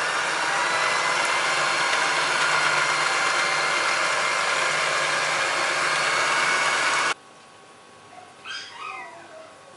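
Electric hand mixer running steadily, its beaters whisking whole eggs, sugar and vanilla in a glass bowl. It cuts off suddenly about seven seconds in.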